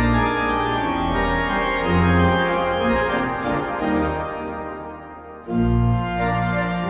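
Pipe organ (a 1996 Goll church organ) playing a waltz with sustained chords over deep bass notes. The sound thins and softens, then about five and a half seconds in comes back suddenly at full strength with heavy bass.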